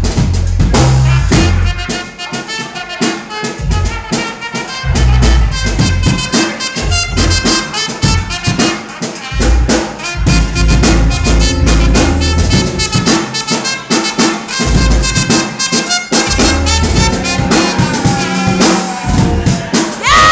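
Live band playing, with a brass horn carrying the melody over a drum kit's steady beat.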